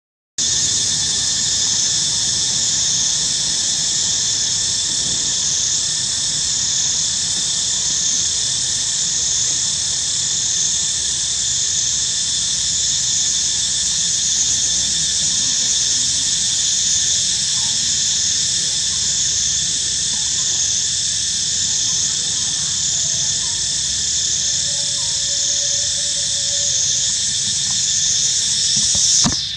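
Loud chorus of cicadas, a steady high-pitched buzz that swells and eases in a regular pulse, cutting off abruptly at the very end.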